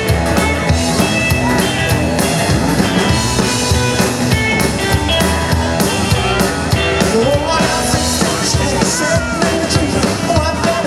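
Rock and roll band playing an instrumental passage, drum kit driving a steady beat under the other instruments.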